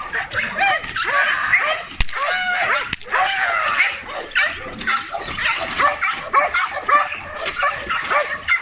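Several guard dogs barking rapidly and without pause, overlapping one another, in the aggressive barking of dogs being provoked by a decoy during protection training. Two sharp cracks come about two and three seconds in.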